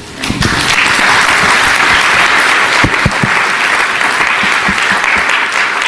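Audience applauding: many people clapping together, swelling up about half a second in and then holding steady.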